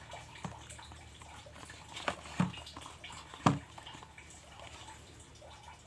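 Quiet room tone with a few faint, short clicks and taps, the clearest about two seconds in and again about three and a half seconds in.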